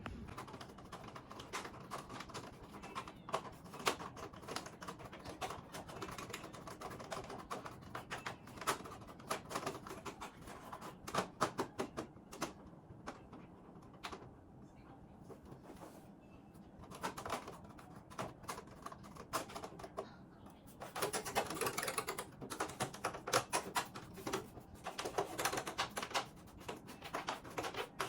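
Rapid, irregular plastic clicking and rattling from handling an air conditioner's indoor unit and filters for cleaning, busier in two stretches in the last third.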